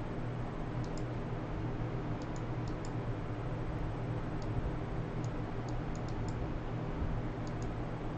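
Faint, irregular clicking at a computer keyboard and mouse, singly and in quick pairs, over a steady low hum.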